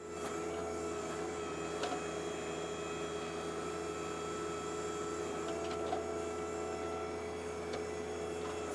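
Compact tractor diesel engine running at a steady speed, an even hum with a few faint ticks.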